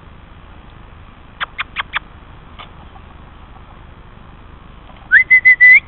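A whistle near the end, gliding up and then holding one high tone in about four quick pulses: a feeding call that the chickens are trained to answer. About a second and a half in come four short sharp sounds in quick succession.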